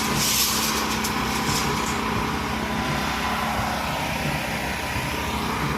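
A steady engine drone with a constant hum, and a hissing rush during the first two seconds.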